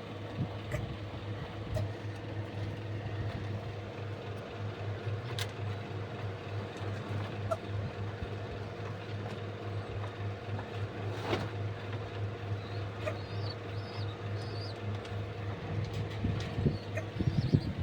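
A steady low mechanical hum, like a motor running, with a few short high bird chirps in the second half.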